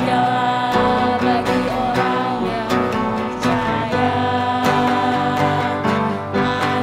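A hymn sung with instrumental accompaniment, in held, steady notes.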